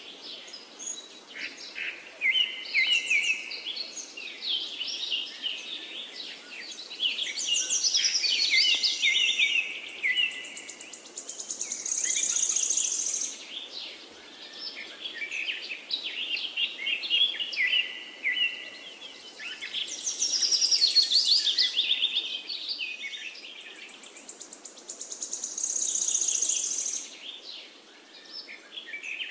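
Birds chirping and singing together, many short calls and trills overlapping, with a high buzzing trill coming back about every 13 seconds.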